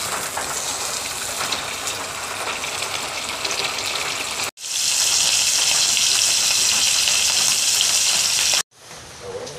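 Beaten egg sizzling in a hot frying pan, with light scraping of a metal spatula as the omelette is folded. After a cut about four and a half seconds in, small whole fish frying in oil give a louder, steady, brighter sizzle, which cuts off near the end.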